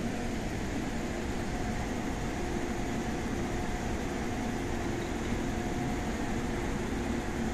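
Steady interior noise of an MTR Tung Chung Line A-Train passenger car: an even rumble and hiss with level electrical hums, one of them fading in and out.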